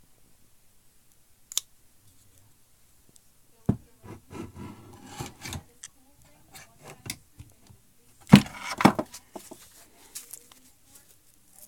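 Folding pocket knives being handled: a sharp click about one and a half seconds in, a knock followed by rubbing and scraping, scattered small clicks, and a louder double knock with a clatter a little past the middle.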